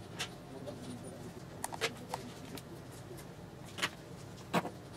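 Light handling clicks and taps, about six, as a stripped wire is worked into a screw terminal on a small circuit board, the last two the loudest.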